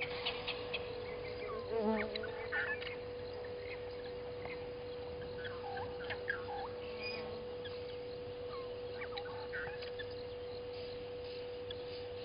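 Bushveld birds calling: scattered short chirps and calls, with a brief wavering call about two seconds in, over a steady faint tone.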